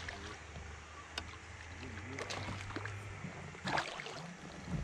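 A hooked fish splashing at the surface as it is reeled in beside a kayak, with the loudest splash about three and a half seconds in.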